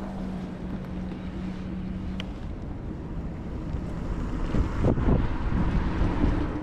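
Electric scooter riding: wind buffeting the microphone over the rumble of the wheels, with a faint steady hum, turning louder and heavier from about four and a half seconds in.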